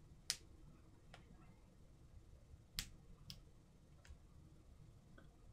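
Near silence broken by a few short, sharp clicks: one about a quarter second in, two close together near three seconds in, and a couple of fainter ones.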